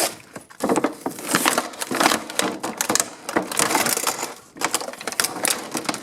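A toy box and its packaging being opened and emptied by hand: a busy run of crinkling, rustling and clattering plastic pieces.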